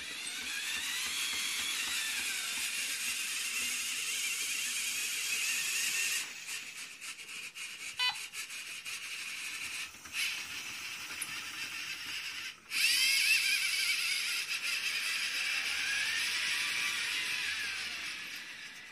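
Electric motors of a LEGO six-axis robotic arm whirring as the arm moves, with a whine that glides up and down in pitch as the motors speed up and slow down. The sound drops away briefly a little past halfway, then comes back suddenly.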